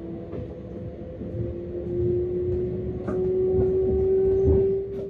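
Metra Electric gallery car, an electric multiple unit, running on the rails: a steady motor whine climbs slowly in pitch and grows louder as the train gathers speed, over wheel rumble with a few sharp clicks from the track.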